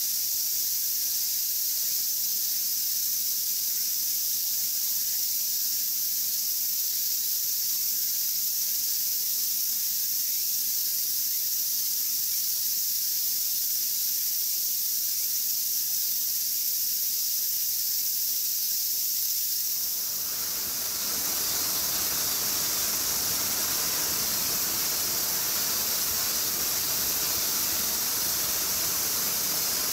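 Steady high-pitched outdoor hiss; about twenty seconds in, a broader rushing noise joins it and runs on.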